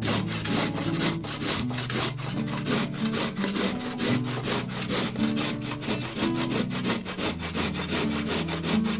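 Carrot being grated on a stainless steel box grater: a quick, even run of rasping strokes, several a second.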